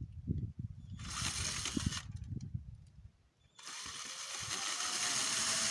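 Cordless drill-driver with a small bit driving a self-tapping screw, running in two bursts: one about a second in, lasting roughly a second, and a longer steady run from about three and a half seconds on.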